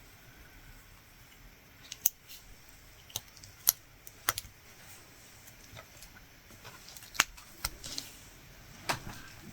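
Irregular sharp clicks and ticks, about seven of them, from a metal latch hook tool as its latch snaps open and shut while knotting yarn into the canvas.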